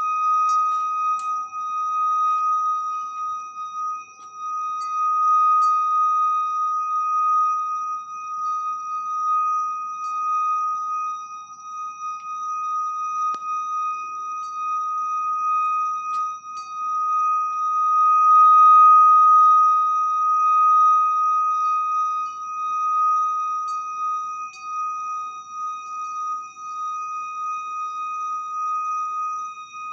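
A loud, steady high-pitched whine: one held tone with fainter higher overtones, swelling and fading in loudness and loudest about two-thirds of the way through. The source is unidentified; it sounds like a plane engine, though no aircraft is in sight.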